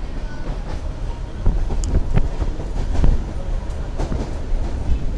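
Passenger train running, heard from inside the carriage: a steady low rumble with irregular knocks and rattles through the middle.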